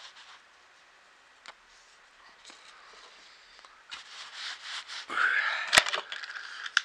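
Near quiet at first with a small click, then, from about four seconds in, close rustling, rubbing and breathy noise right at the microphone, with a sharp click a little before the end.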